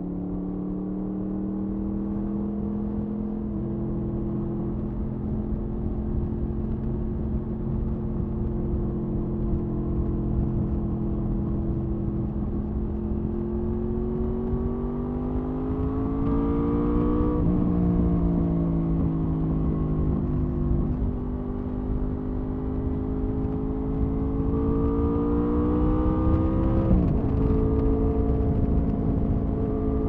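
2007 Honda VFR800A Interceptor's V4 engine and exhaust under way, holding a steady note, then rising in pitch as it accelerates and dropping sharply at a gear change, twice, and starting to climb again near the end. Wind rumbles on the microphone underneath.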